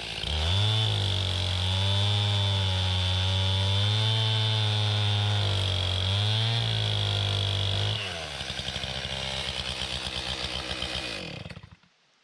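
Chainsaw running at full throttle, its speed dipping briefly twice, then falling to a pulsing idle about eight seconds in before it is shut off near the end.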